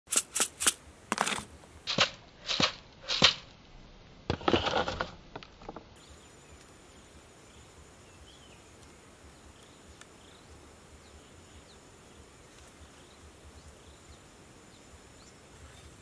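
A quick series of sharp knocks or snaps, about seven in the first three and a half seconds, then a longer rattling burst, after which it drops to a quiet outdoor background with faint bird chirps and a thin steady insect-like whine.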